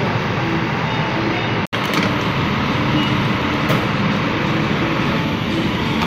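Petrol pump filling a motorcycle's fuel tank: fuel rushing steadily through the nozzle over the pump's low hum, broken by a momentary dropout about two seconds in.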